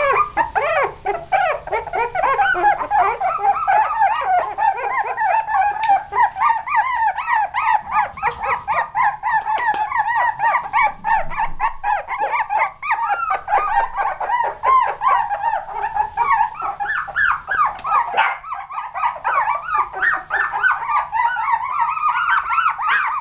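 Young miniature dachshund puppies whining and squealing, a nonstop run of short high-pitched cries coming several a second, their pitch climbing over the last few seconds.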